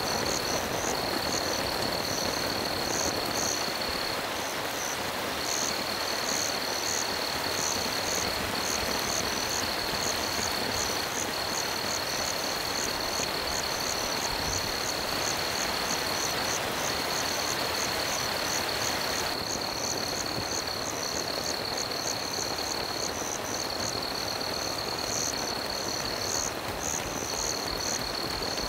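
Night chorus of calling animals. A high continuous trill is broken by short gaps every few seconds, and quick chirps repeat a few times a second above it, all over a steady hiss.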